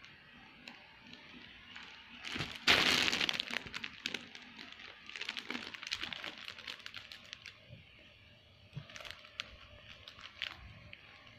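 Close rustling and crackling of bedding and handling noise against the phone microphone, with a loud burst of crackle about two and a half seconds in, more rustling a couple of seconds later, and a few sharp clicks near the end.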